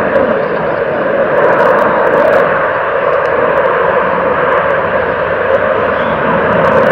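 Airbus A380's four turbofan engines running as the jet rolls along the runway: a loud, steady jet roar with a faint steady tone beneath it.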